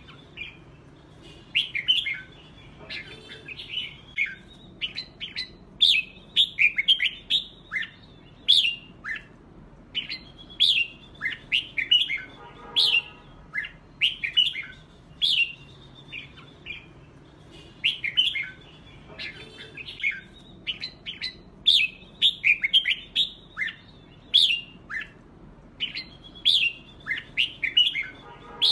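Red-whiskered bulbuls singing in a competitive song bout: quick, clear whistled phrases repeated every second or two, with a few harsh rasping notes mixed in.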